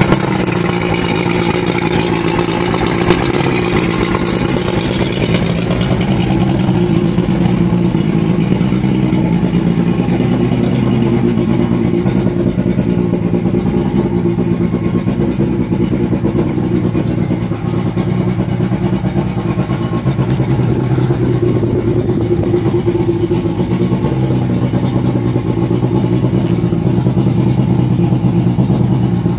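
Johnson 85 Javelin outboard's two-stroke V4 engine running steadily out of the water.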